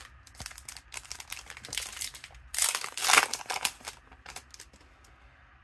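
Foil wrappers of Donruss Optic football card packs crinkling and rustling as they are handled, with a louder rush of crinkling about two and a half seconds in.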